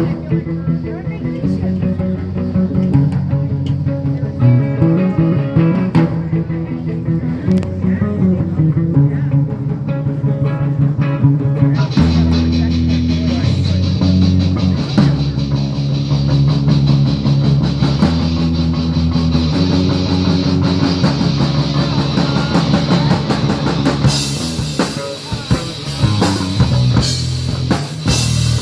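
Live rock band playing an original song: electric guitar, electric keyboard and drum kit, with a singer at the microphone. The band grows fuller about twelve seconds in, and the cymbals get brighter from about twenty-four seconds in.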